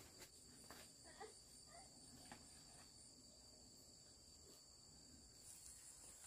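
Faint, steady high-pitched chirring of insects such as crickets, with a few soft knocks.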